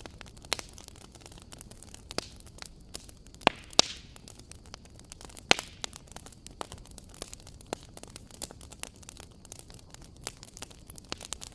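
Fire crackling in a fireplace: a steady run of small pops and snaps over a faint hiss, with a few louder, sharper pops about a third of the way in and near halfway.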